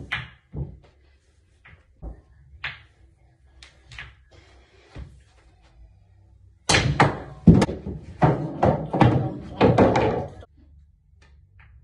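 Pool balls knocking on a pool table: a few light clicks of cue and balls early on, then, about seven seconds in, a shot sets off a loud clatter of ball-on-ball knocks and heavier thuds that lasts a few seconds.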